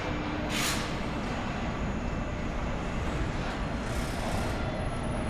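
Factory floor machinery noise: a steady low rumble with two short hisses, one about half a second in and another about four seconds in.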